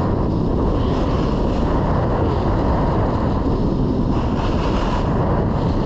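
Snowboard riding fast down a hard, icy run: a steady rush of wind over the microphone, with the board's edges scraping across the ice in a hiss that swells and fades.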